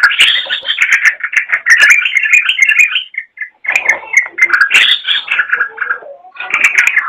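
Yellow-vented bulbul (trucukan) singing loud, busy runs of rapid chattering notes, with two short pauses about three and six seconds in.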